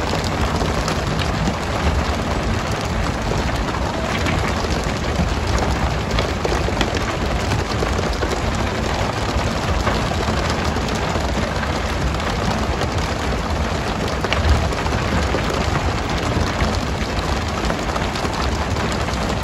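Steady hiss and patter of water spray showering onto the sea behind a pole-and-line tuna boat, over a low rumble, with scattered small knocks and one louder knock about three-quarters of the way through.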